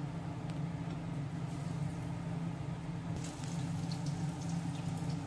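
Besan-battered bottle gourd slices deep-frying in hot oil in an iron kadhai: a steady sizzle that grows brighter about one and a half seconds in and again about three seconds in, with a few light ladle clicks. A steady low hum runs underneath.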